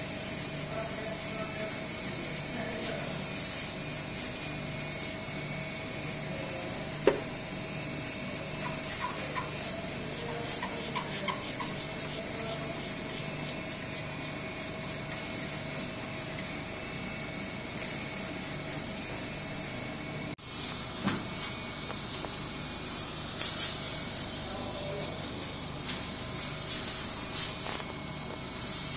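Hand chisel and gouge scraping and paring a carved wooden chair leg in short strokes, over a steady hiss and hum. A single sharp knock about seven seconds in.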